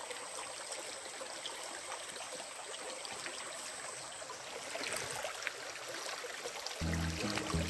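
Stream water running steadily. Near the end, background music with a low bass line comes in over it.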